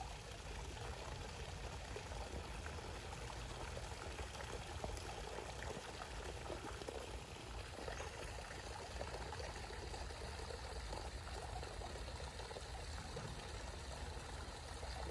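Faint, steady outdoor background noise: a low rumble under an even hiss, with no distinct event standing out.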